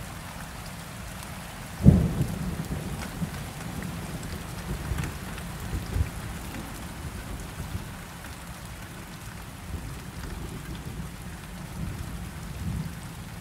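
Steady rain with a sharp clap of thunder about two seconds in, which rumbles on low afterwards.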